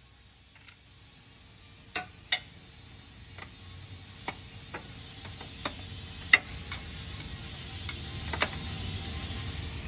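Ratchet wrench clicking in short, uneven strokes while a bolt on the Mack MP8's starter motor is worked, with two sharper metallic clacks about two seconds in.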